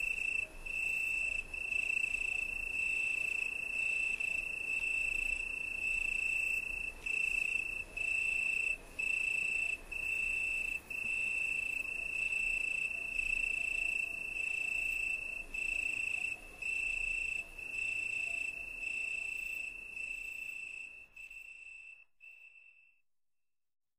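A cricket trilling on one steady high pitch, broken by short gaps every second or so, fading out near the end.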